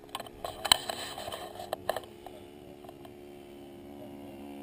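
Radio-control model airplane glow engine running steadily, with a handful of sharp clicks and knocks in the first two seconds.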